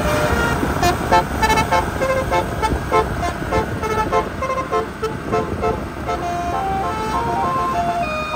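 Tour bus's multi-note basuri 'telolet' musical air horn playing a melody over a low rumble. Quick short notes run through the first half, then longer notes step upward in pitch near the end.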